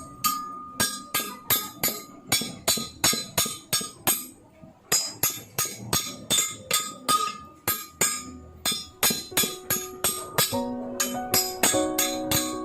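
Background music with a steady tambourine-like beat, about three hits a second. The beat drops out briefly partway through, and sustained pitched notes join it near the end.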